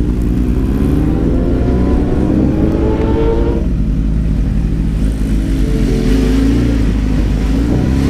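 Sport motorcycle engine heard close up from a camera mounted on the bike, pulling away at low speed. Its pitch rises for about three seconds and drops back, then climbs again in the last couple of seconds.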